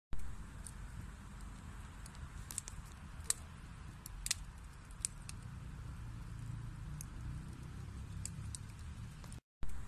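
Wood fire burning in a fireplace: a low steady rumble of flames with scattered sharp crackles and pops from the burning wood. The sound cuts out for a moment near the end.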